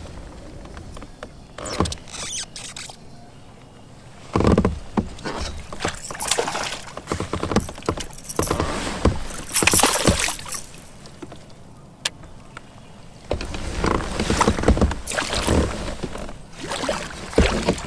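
Splashing, knocks and rustles on a plastic fishing kayak, coming in irregular bursts as a bass is landed and handled.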